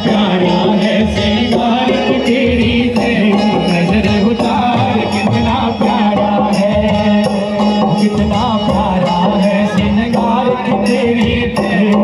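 Loud Hindi devotional bhajan song with singing over a quick, even percussion beat, played through PA loudspeakers.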